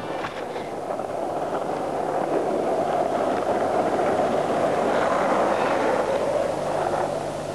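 Skateboard wheels rolling over asphalt, making a steady rumbling noise.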